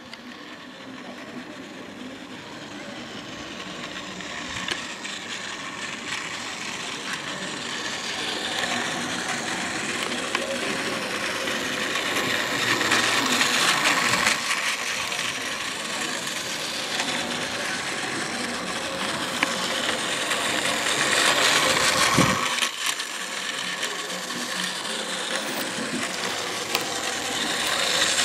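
Battery-powered Plarail Hakone Tozan series 3000 toy train whirring as its small motor and gears drive it along plastic track, with a few faint clicks. It grows louder over the first dozen seconds as the train comes closer, and dips briefly about 22 seconds in.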